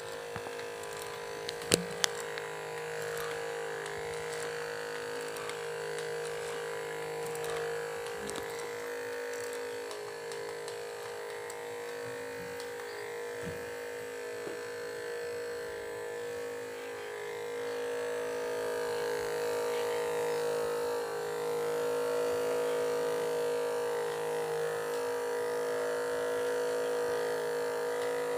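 The small 12-volt electric motor of a homemade radio-controlled model ship running with a steady buzzing whine, a little louder in the second half. A couple of sharp clicks about two seconds in.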